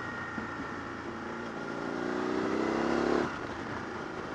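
Motorcycle engine accelerating: its pitch rises and grows louder for about two seconds, then drops off suddenly, over steady wind and road noise.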